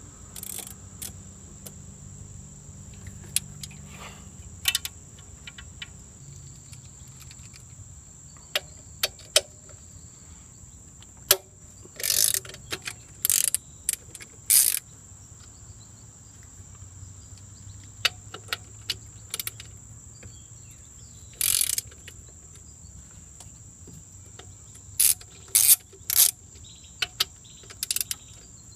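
Ratchet wrench clicking in several short bursts, with scattered sharp metal clinks of tools, as bolts on a diesel engine's intake are turned.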